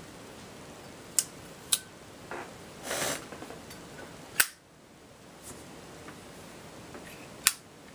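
Matte black Zippo lighter being handled, giving four sharp metallic clicks and a short scraping rasp about three seconds in.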